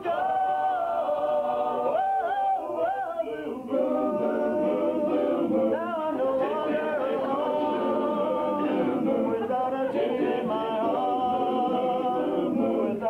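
Small men's vocal group singing a 1950s-style song a cappella, several voices in close harmony with held and sliding notes. Their singing dips briefly about three seconds in.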